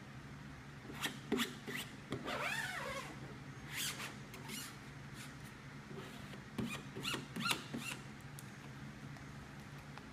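Plastic squeegee rubbing and scraping over a vinyl stencil laid on a car panel, in short strokes, with one drawn-out squeak that bends up and down in pitch about two seconds in. A steady low hum runs underneath.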